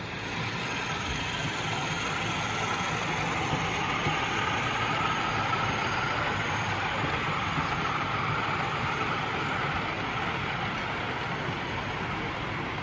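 A model railway train running along the layout close by, giving a steady whirr of motor and wheels on the track that builds about a second in. It is heard over the background noise of a busy exhibition hall.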